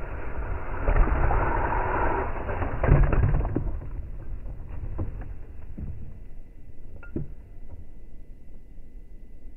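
Traxxas TRX4 RC crawler driving over loose dirt, its tyres churning and throwing soil with the drivetrain running. Loudest in the first three and a half seconds, then quieter crunching with scattered clicks and knocks from the tyres on gravel.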